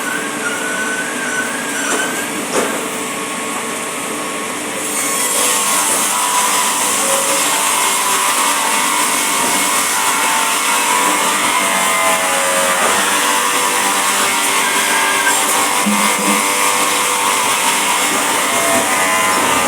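A woodworking power tool running steadily, getting louder about five seconds in, with its pitch drifting now and then.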